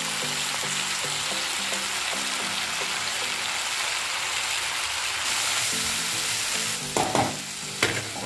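Onions, tomatoes, ginger and garlic sizzling steadily in hot oil in a pan over a medium flame as they are sautéed. Two short knocks come near the end.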